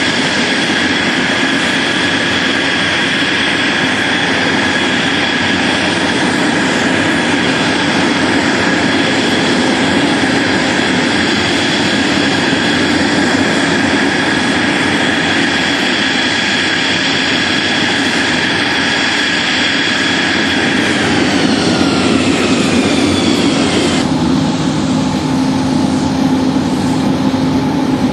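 Jet aircraft engine noise, a loud steady rush with a high turbine whine that falls in pitch about 21 seconds in as the aircraft goes past. About 24 seconds in the sound changes abruptly to a lower, steadier rumble.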